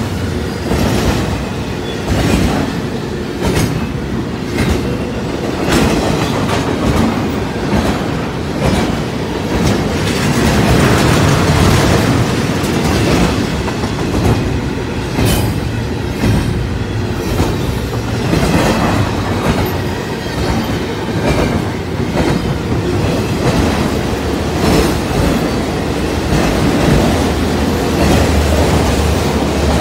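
Freight train of double-stack container well cars and autorack cars rolling past at close range: a continuous rumble and rattle of the cars, with steel wheels clicking over the rail joints again and again.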